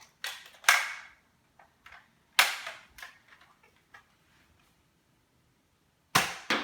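Manually primed Nerf blaster firing darts: three sharp pops, the last near the end, with smaller clicks between the shots.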